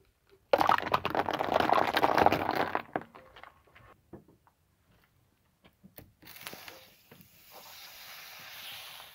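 Loud crackling crunch lasting about two seconds as a car tyre rolls over hollow chocolate rabbits. Later a hiss swells as the tyre presses down on small juice cartons and juice sprays out of them.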